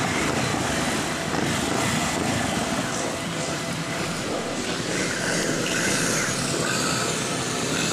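Motorcycle riding slowly, its engine running steadily under wind rumble on the microphone.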